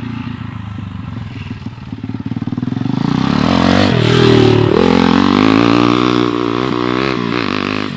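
Pit bike engine revving hard under a rider on dirt. It rises in pitch and grows loud about three and a half seconds in, then keeps changing pitch as the throttle is worked.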